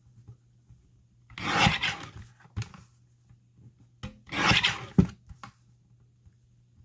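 Paper being handled on a craft table: two scratchy rustling scrapes, each about a second long, with a short scrape between them.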